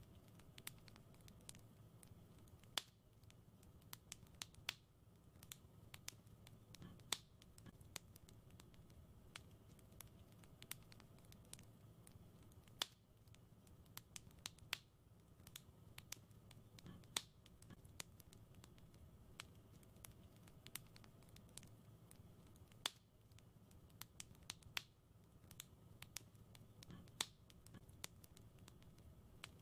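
Wood fire in a fireplace crackling: irregular sharp pops and snaps, sometimes several in quick succession, over a faint low rumble.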